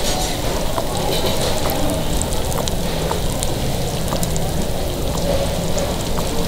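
Takoyaki batter sizzling steadily on a hot takoyaki griddle, with small scattered pops, as fresh batter is squeezed over the half-cooked balls.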